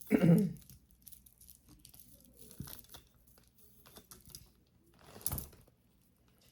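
Tangled jewelry being picked apart by hand: faint clicks and rustles of chains and packaging, with one louder crinkle of a plastic bag about five seconds in.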